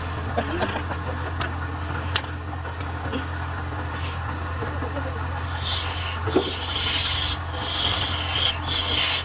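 Wood lathe running with a steady motor hum while a hand-held chisel cuts the spinning wooden blank. In the second half the tool's scraping hiss comes and goes in short strokes.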